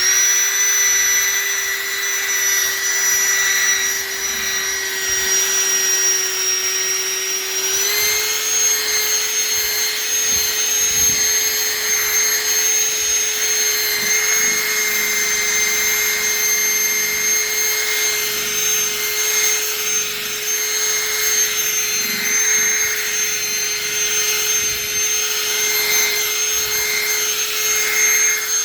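Electric drill spinning a buffing wheel to polish a headlight lens, running steadily at speed with a motor whine. Its pitch steps up slightly about eight seconds in.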